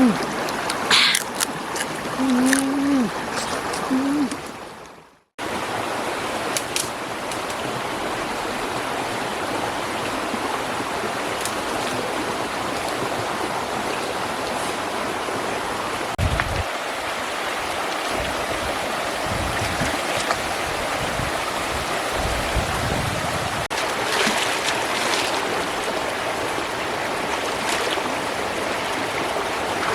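Steady rushing of flowing water, with a few low thumps in the middle.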